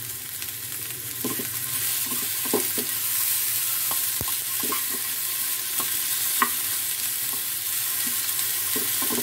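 Diced potatoes and onion sizzling in oil in a non-stick frying pan, stirred with a wooden spatula that knocks and scrapes against the pan about every second.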